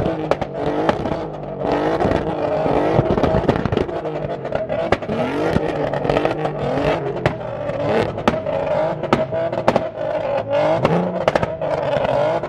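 Audi TT's engine revved again and again, its pitch rising and falling, then held higher in the second half, with many sharp exhaust pops and bangs. The pops are unburnt fuel being lit at the tailpipe with a lighter and coming out as flame.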